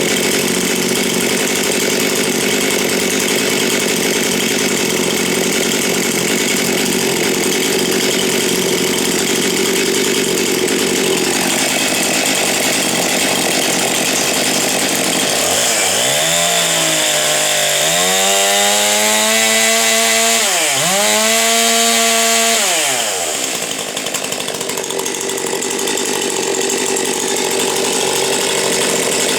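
Stihl MS 261 C-M two-stroke chainsaw with M-Tronic and a ported dual-port muffler running at high revs, apparently cutting wood. Its pitch sags and recovers about three times in the middle as the chain loads up.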